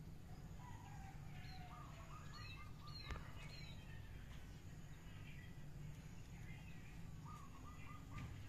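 Faint birdsong: scattered short chirps and falling whistles, and twice a quick run of five or six repeated notes, over a steady low background noise.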